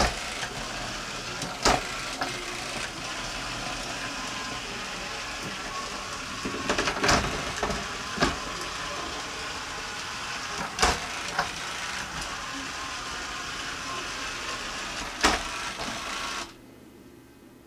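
Arduino-driven Roomba's wheel motors and gearboxes whirring steadily as it drives, backs up and turns. Sharp knocks come every few seconds. The motors stop near the end, as the robot pauses.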